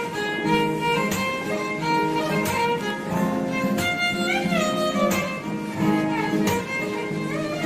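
Background music: an instrumental tune over a steady beat, with a melody that slides up in pitch about halfway through.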